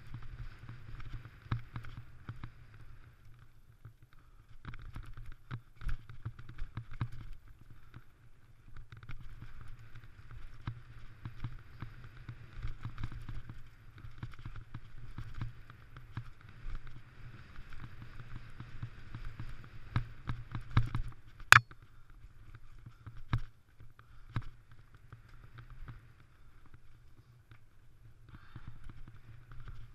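Mountain bike rolling fast down a dirt trail: tyres rumbling over the ground and the bike rattling and knocking over bumps, with a steady higher whirr that drops out a few times. A sharp knock about two-thirds of the way through is the loudest sound.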